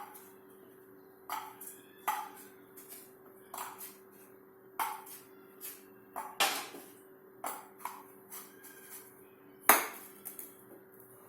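Kitchenware clinking: a string of light taps and clinks, roughly one a second, each with a short ring, the loudest a little before the end.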